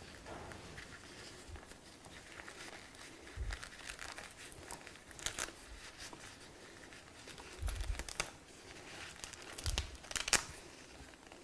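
Faint crinkling and rustling of a plastic fluid reservoir bag and its pressure sleeve being handled and fitted onto a training manikin's genital insert, with a few sharper rasps and dull bumps.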